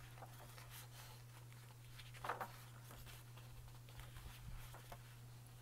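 Faint rustling of heavy paper pages as a large photo book is leafed through by hand, the clearest page turn about two seconds in, with small soft ticks of paper near the end.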